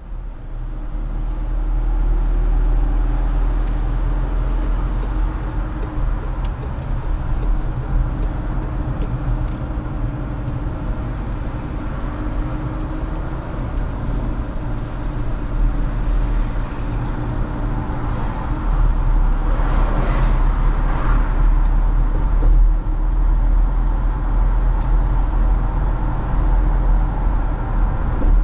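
Car driving, heard from inside the cabin: a steady low rumble of engine and tyres on the road, with a louder rush of noise about twenty seconds in.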